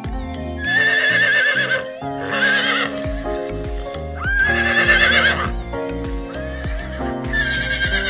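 Horse whinnying four times, each neigh a high call with a shaking, wavering pitch, over background music.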